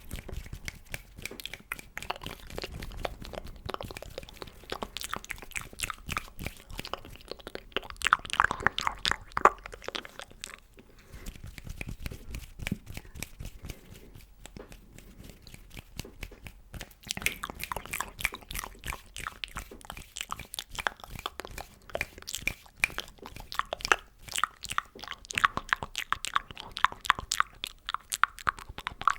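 Close-miked ASMR mouth sounds: rapid wet clicks and smacks. They come in dense runs that grow louder and busier about eight seconds in, and again from about seventeen seconds on.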